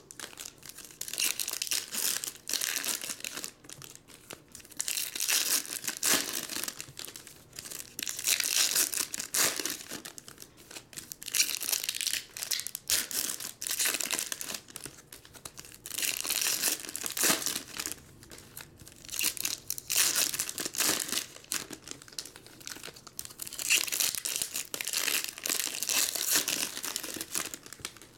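Foil trading-card pack wrappers (Topps Finest) being torn open and crinkled by hand, in repeated bursts of crackling rustle every second or two.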